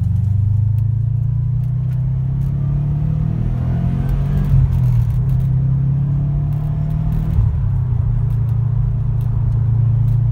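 2013 Subaru WRX STI's turbocharged 2.5-litre flat-four running under load up a hill, heard from inside the cabin: a steady low engine note that climbs a little, with two short louder moments about four and a half and seven and a half seconds in.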